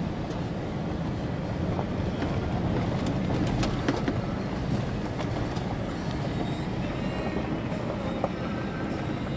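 Vehicle cabin noise while driving over a rough dirt-and-gravel road: a steady low rumble of engine and tyres with scattered clicks and rattles from stones and the body.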